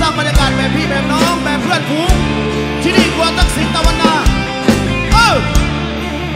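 Live rock band playing an instrumental passage. Drum kit hits and a bass line run under a lead melody with bending, sliding notes, and one long downward slide about five seconds in.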